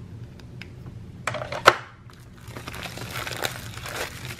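Thin plastic shrink-wrap crackling and crinkling as it is slit open and a coloring book is pulled out of it: two sharp crackles about a second and a half in, then steady crinkling for the last couple of seconds.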